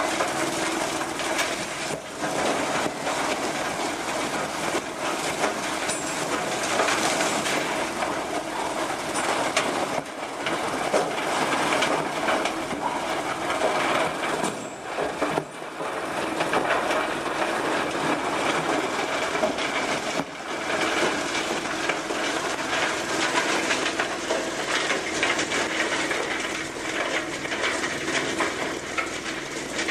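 Industrial wood crusher running under load, a continuous dense grinding with constant cracking and crackling as it shreds waste wood into chips. There is a brief lull about halfway through.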